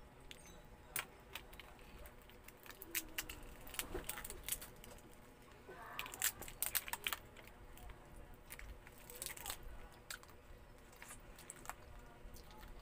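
Cooked crab shells being cracked and pulled apart by hand, a scatter of sharp snaps and crackles that come in short flurries, the busiest around the middle of the stretch.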